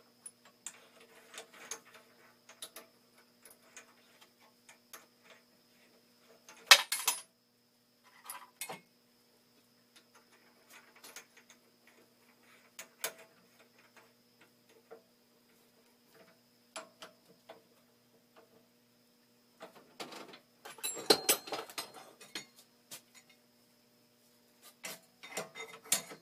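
Bench drill press work on a metal tool plate: a faint steady hum under scattered light metallic ticks and clicks, with a short sharp clatter about seven seconds in and a longer rattling burst around twenty-one seconds.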